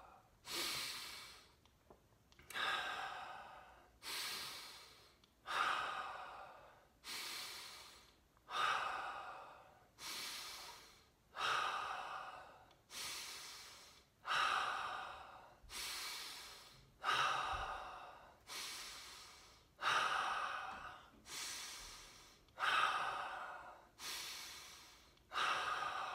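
A man breathing deeply and rhythmically, in and out, about one full breath every three seconds: the round of deep breaths of a breathwork exercise that leads up to a breath-hold.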